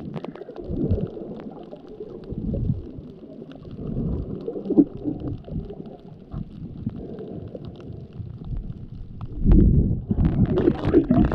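Muffled underwater sound picked up by a camera held under water: a low rumble and swish of moving water with scattered faint clicks. It grows louder and rougher about nine and a half seconds in.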